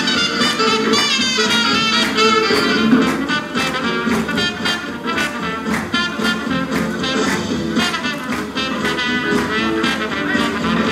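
Up-tempo swing music with a horn section of trumpets and saxophones over a steady drum beat.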